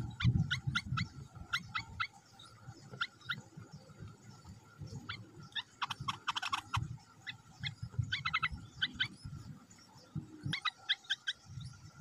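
Bulbul nestlings begging with short, high cheeping chips, in small groups and in a dense rapid flurry about six seconds in, as a parent feeds them at the nest. Low rustling thumps run underneath, loudest near the start.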